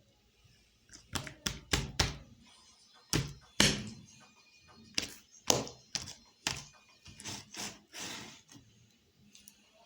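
Slime being slapped and squished by hand against a surface: about a dozen irregular thuds and slaps with wet smacking pops.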